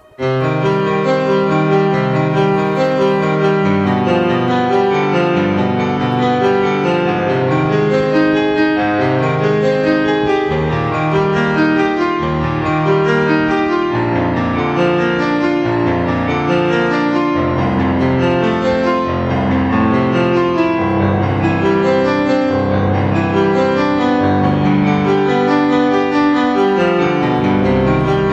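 Background music led by piano, with chords and a melody in a steady rhythm, starting abruptly at the beginning.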